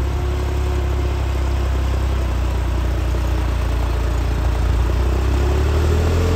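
New Holland 3630 tractor's three-cylinder diesel engine running steadily under load, pulling a tillage implement through worked soil. It grows a little louder toward the end as the tractor comes closer.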